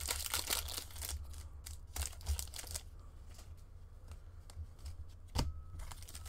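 Foil trading-card pack wrapper crinkling and tearing as it is opened, followed by softer rustling of the cards being handled, with a sharp tap about five seconds in. A steady low hum sits underneath.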